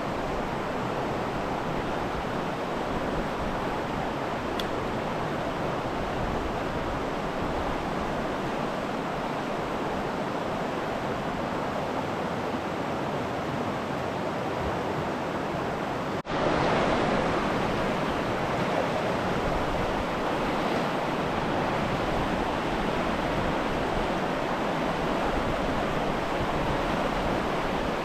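Rushing water of river rapids, a steady rush. It breaks off for an instant a little past halfway and comes back slightly louder.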